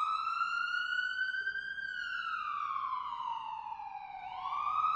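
Emergency vehicle siren wailing: the pitch is high at first, glides slowly down from about two seconds in, and climbs again near the end.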